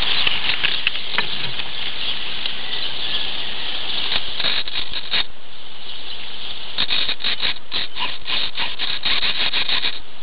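Steady hiss with bursts of crackling clicks, about four to five seconds in and again from about seven seconds on: static and handling noise on the RC plane's onboard camera audio, before its motor runs.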